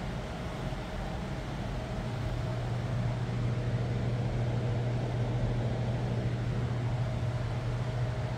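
A large air conditioner running: a steady low hum over a rushing noise, the hum growing louder about two to three seconds in.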